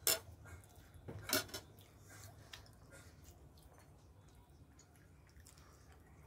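Eating noodles: two sharp clicks of utensils against the serving platter in the first second and a half, then faint chewing.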